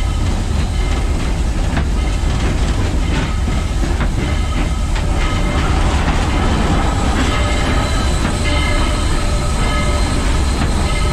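Cab noise of the 2-8-2 steam locomotive Southern 4501 running: a heavy steady rumble with rapid clicks of the wheels over the rail, and high metallic tones that come and go, stronger from about halfway as the engine runs into a tunnel.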